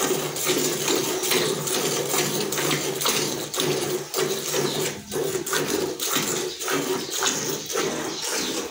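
Milk squirting into a pail in rhythmic jets from a cow being milked by hand, about two squirts a second, over a steady low hum.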